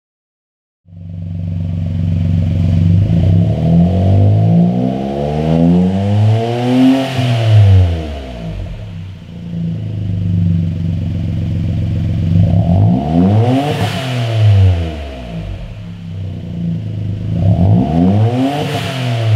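Suzuki Jimny JB64W's turbocharged three-cylinder engine running through a BLITZ NUR-SPEC Custom Edition stainless exhaust: it sets in about a second in, then is revved up and let fall back three times. The first is a long, slow climb to a peak and a drop; the next two are quicker blips, the last one falling near the end.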